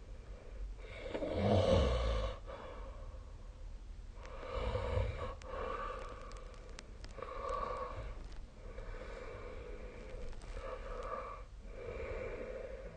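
A sleeping person snoring: one louder, deep snore about a second in, then a run of shorter, raspy snoring breaths following each other every second or two.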